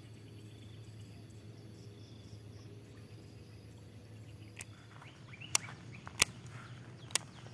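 Quiet outdoor background with a steady low hum and a faint high, steady tone. In the second half come four short, sharp clicks, two of them loud.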